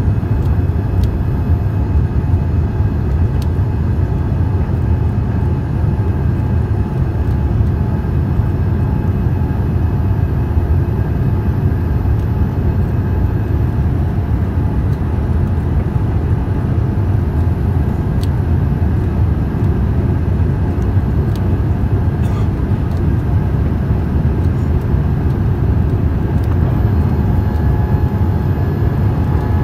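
Steady cabin noise of a jet airliner climbing after takeoff: a low, even rumble of the engines and airflow, with a few faint steady whining tones above it.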